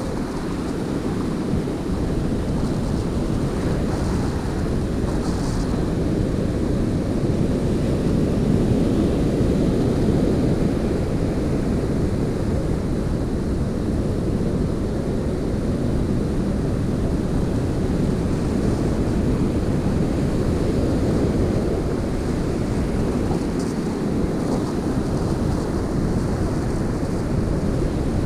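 Surf breaking and washing up the beach, with wind buffeting the microphone; a steady rushing noise that stays even throughout.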